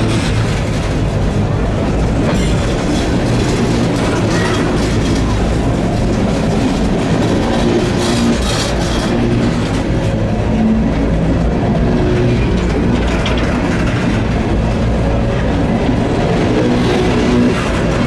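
Empty steel coal cars of a freight train rolling past at close range: a loud, steady rolling rumble of wheels on the rails, with sharper wheel clicks a few times, about 2.5 and 8 to 9 seconds in.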